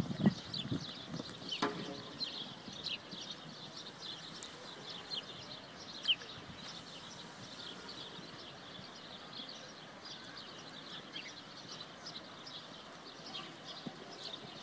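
Small birds chirping in many short, high calls, with one louder call about six seconds in. In the first couple of seconds a few hoofbeats of a cantering horse on sand sound, then fade.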